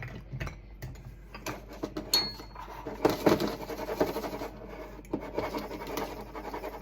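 Dry ingredients, mostly instant rice, rattling and scraping inside a pint jar as it is shaken down to settle the contents: an irregular run of quick taps and scratches.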